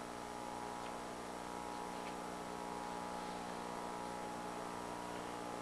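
Steady electrical mains hum with a hiss underneath, with a couple of faint ticks about one and two seconds in.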